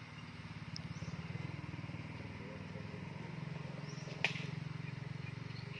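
Small engine running steadily, a low drone that swells about a second in and eases near the end. One sharp click about four seconds in.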